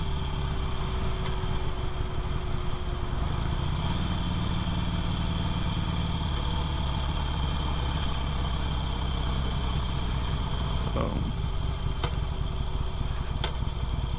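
2008 Harley-Davidson Sportster 883L's air-cooled V-twin running steadily under way. Its pitch rises briefly about four seconds in and holds for a couple of seconds.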